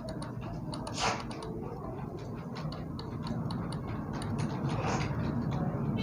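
Computer keyboard keys clicking in quick, irregular succession as someone types at a steady pace, over a steady low hum. Two louder, noisier sounds stand out, about a second in and near five seconds.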